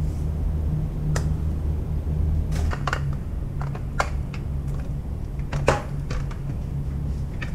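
Hands handling peeled giant squid mantle on a plastic cutting board: scattered clicks and taps, about half a dozen, the loudest a little past halfway, over a steady low hum.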